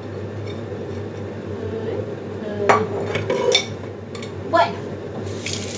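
Dishes and kitchen utensils being handled, with several sharp knocks and clinks in the middle, then a tap starting to run near the end.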